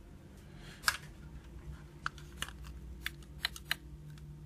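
Scattered light clicks and taps of a small circuit board and plastic USB-port module being handled by hand, one about a second in and a cluster later on, over a faint steady low hum.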